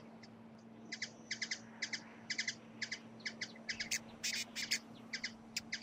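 High, quick chirps repeated in groups of two or three, a few groups a second, with a few louder, harsher chirps about four seconds in, over a faint steady hum.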